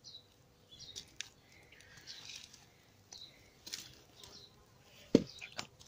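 Gear being handled by hand: scattered soft rustles and small clicks from the gloves and helmet, with one sharper knock about five seconds in.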